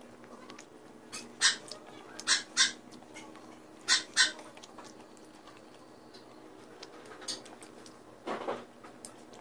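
Close-up eating sounds of crispy fried chicken: about five sharp crunches and mouth smacks in the first half, then a softer chewing sound near the end.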